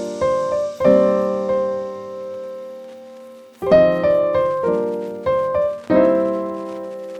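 Background piano music: struck chords and notes that ring and fade, in short phrases.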